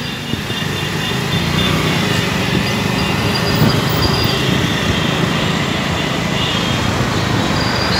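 Two-wheeler ride through dense city traffic: a steady rumble of the bike's engine and wind noise on the microphone, with the surrounding cars and scooters.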